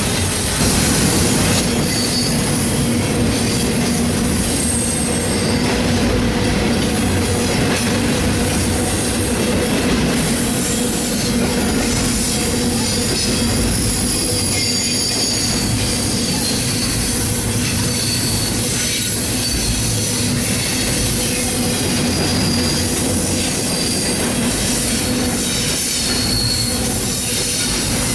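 A train rolling past at trackside, its cars' wheels squealing on the rail in short, high-pitched bursts over a steady rumble and clickety-clack.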